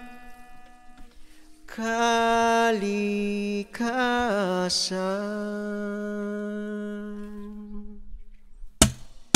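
A solo male voice sings long held notes, with a wavering run in the middle, fading out about 8 s in. Near the end, sharp hand-drum hits on a cajón begin.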